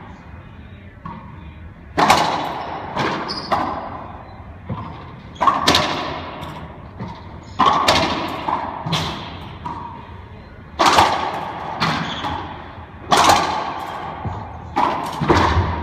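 Racquetball rally: about fifteen sharp cracks of racquets striking the ball and the ball hitting the court walls, each ringing with echo in the enclosed court, often in close pairs.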